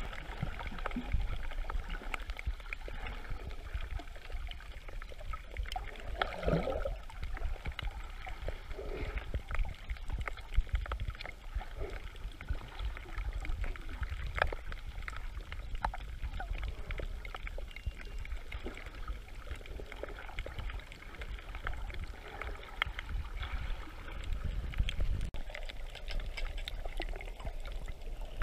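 Muffled water sloshing and gurgling around an underwater camera, with a steady low rumble and many small scattered clicks.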